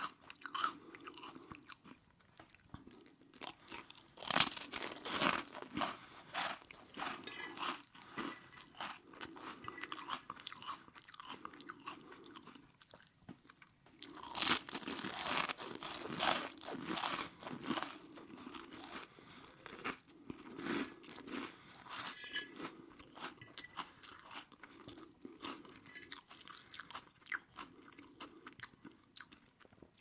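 Close-miked chewing of aubergines cooked in sunflower oil: a continuous run of wet, crunchy mouth sounds, with louder bites about four seconds in and again about halfway through.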